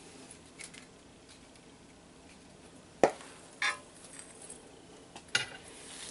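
Light metallic clicks and clinks as a steel wire rope thimble and ferrule are handled and fitted into a cable loop by hand. The sharpest click comes about three seconds in, followed by a few lighter ones.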